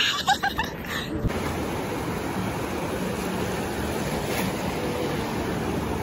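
A moment of voice, cut off about a second in, then the steady rushing wash of ocean surf breaking and running up a sandy beach.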